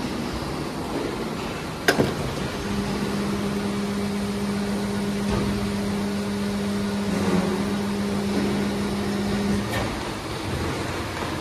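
HJF240t injection molding machine running through its cycle over steady machine-hall noise. A sharp click comes about two seconds in, then a steady low hum holds for about seven seconds and stops.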